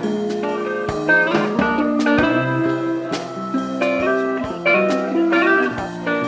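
Instrumental music built on plucked string notes that ring on after each attack, several new notes a second.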